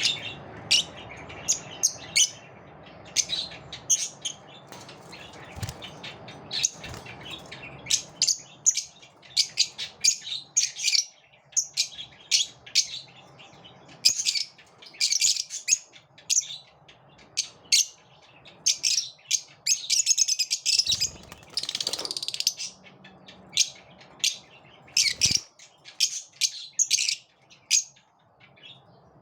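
Lovebirds chirping: a continuous run of short, sharp, high-pitched calls, thickest about twenty to twenty-two seconds in, with a few dull thumps among them.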